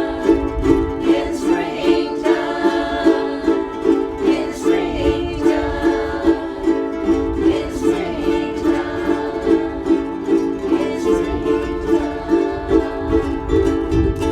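Ukuleles strummed in a steady, even rhythm, playing a song.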